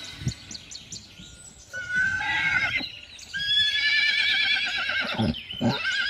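Horse whinnying twice: a short call about two seconds in, then a longer one with a quavering pitch.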